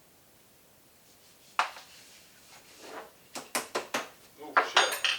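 Metal kitchen tools being handled: a sharp knock, then a quick run of clicks and knocks with a brief ringing clink near the end.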